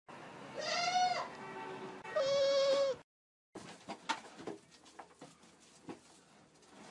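Two loud goat bleats, the first rising then falling, the second longer and held on one pitch before dropping at the end. After a short silence, faint clicks and rustling of animals moving about a pen.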